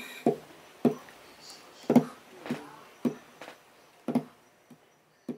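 Acoustic guitar played percussively, a drum-like beat of short, sharp struck notes about two a second that die away quickly. The beat grows fainter and ends near the close.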